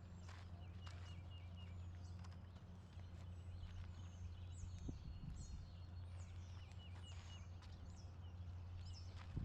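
Birds calling over a steady low hum: a run of short, downward-sliding whistles and quick chirps, with a few scattered clicks.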